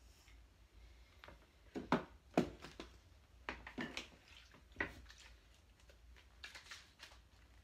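Scattered clicks and knocks of small items being handled and set down on a desk, loudest about two seconds in.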